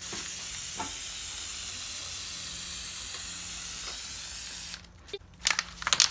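Aerosol can of biodegradable air-filter oil spraying onto a dirt bike's foam air filter: a steady hiss for nearly five seconds that stops suddenly, followed by a few short clicks.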